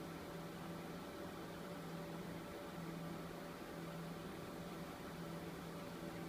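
Dell PowerEdge 2900 server running: a steady whir of its cooling fans with a low hum.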